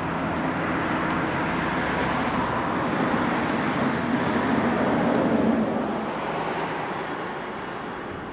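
Engine and tyre noise of a motor vehicle going by, building to a peak about five seconds in and then fading away, with small birds chirping high above it.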